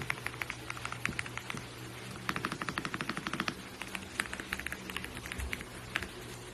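Typing on an AULA F75 gasket-mounted mechanical keyboard: a stream of key clicks that quickens into a fast burst of keystrokes in the middle. A faint steady hum runs underneath.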